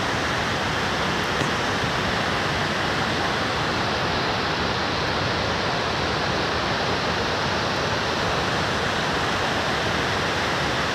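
Waterfall and its rapids pouring in high flow, a steady, even rush of water; the falls are swollen by rain and snowmelt off the mountain.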